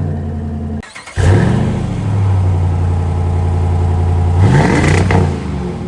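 Car engine breathing through a newly fitted Flowmaster exhaust: idling, then, after a brief dropout about a second in, revved up and held at a raised engine speed for about three seconds before dropping back toward idle.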